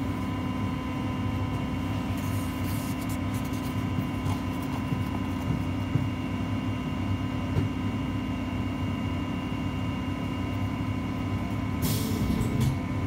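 Belkommunmash BKM 321 trolleybus standing still, its onboard equipment giving a steady hum with several fixed tones. A brief hiss comes near the end.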